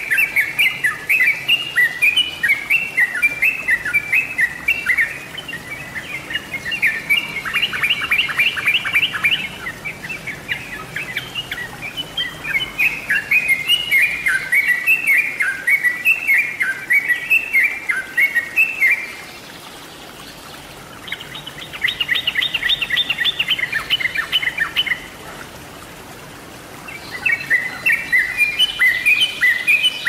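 Trucuk (yellow-vented bulbul) singing: quick, bubbly phrases of repeated chattering notes, with a rapid rattling trill about 8 seconds in and again near 22 seconds, and two short pauses in between.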